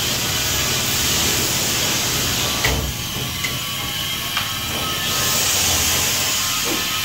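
Steady hiss with a few faint knocks; the hiss brightens for a couple of seconds near the end.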